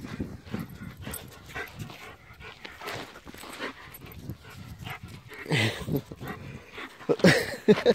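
German shepherd giving short barks and yips in rough play: one call about five and a half seconds in and a louder cluster near the end, with faint scuffling on dirt between them.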